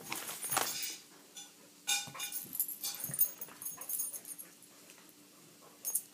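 A Brussels griffon and a boxer play-fighting: scuffling and short dog noises in irregular bursts, including a brief pitched yelp-like sound about two seconds in.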